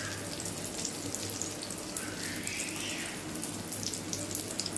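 Oil sizzling and crackling steadily around a vegetable omelette frying on a flat iron tawa over a low flame.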